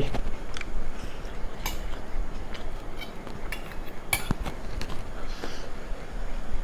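Utensil clinking and tapping against a plate of food during eating: scattered light clicks, the sharpest about four seconds in.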